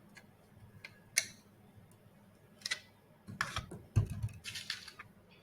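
Sharp clicks and knocks of small plastic robot parts and tools being handled during assembly. There is a single click about a second in and another near the middle, then a busier clatter with a louder knock about four seconds in.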